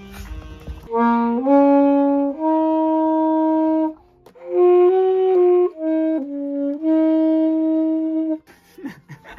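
Saxophone playing a slow melody of long held notes, with a short breath pause about four seconds in; the playing stops near the end.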